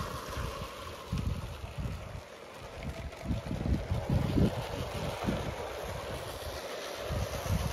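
Wind buffeting the microphone in uneven gusts, over the faint steady running of a Bassett-Lowke clockwork tinplate Royal Scot and its coaches on the garden track.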